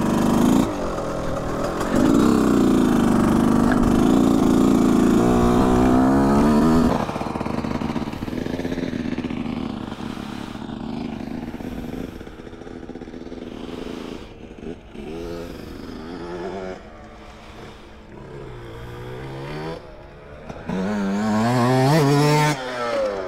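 Motocross bike engine revving hard, its pitch rising and falling as it accelerates and shifts. It is loud and close for about the first seven seconds, then fainter with repeated rising revs, and loud again near the end as the bike accelerates close by.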